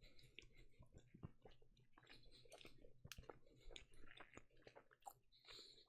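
A man chewing a mouthful of burger, faint, with irregular small clicks of the mouth and jaw.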